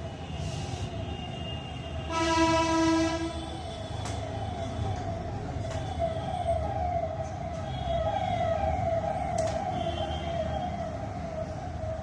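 Traffic noise with a low rumble. A vehicle horn sounds once about two seconds in, held for over a second, and then a siren-like wail rises again and again, about twice a second, to the end.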